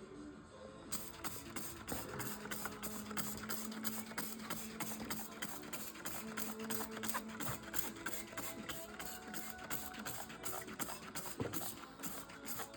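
A bumper being scrubbed clean with water in quick, even strokes, about three a second, with a faint hum coming and going underneath.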